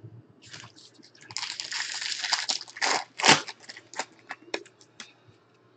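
Plastic wrapper of a baseball card pack being torn open and crinkled by hand: a dense crackling that is strongest in the middle, with several sharp crackles, the loudest just after three seconds in.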